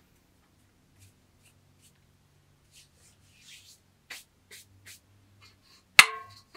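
Light scratching and rubbing of a hand inside a large aluminium bowl, in scattered short strokes. Near the end the metal bowl is knocked once: a sharp clank that rings briefly.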